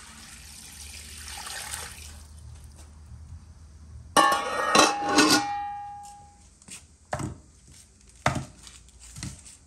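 Water poured from a jug into a large metal cooking pot for about two seconds, then an enamel lid clattering against the metal pot's rim with a brief metallic ring, the loudest sound. Near the end come a few short knocks as onions are taken from a wicker basket.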